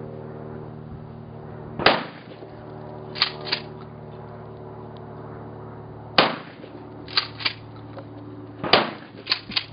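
12-gauge pump-action shotgun fired three times, a few seconds apart. Each shot is followed about a second later by a quick pair of sharp clacks, the pump being racked back and forward to chamber the next shell.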